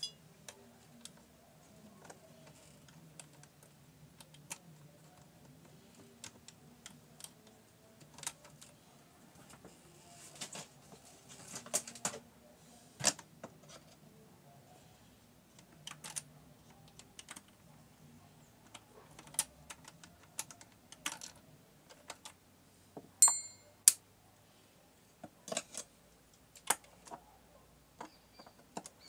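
Scattered light clicks and metallic taps at irregular spacing as a hand tool works at the needle plate of a Singer portable sewing machine, with a brief metallic ring about three quarters of the way through.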